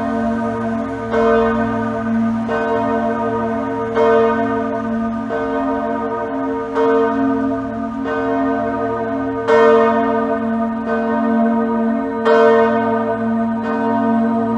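Church bells of the Johanneskirche in Freiburg pealing, fresh strokes landing about every second and a half over a continuous ringing hum.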